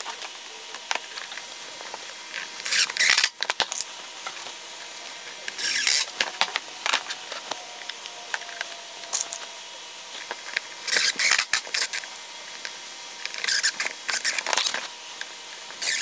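Wooden frame boards being handled, glued and fitted together on a workbench: a scattered series of short scraping and rustling sounds and light knocks.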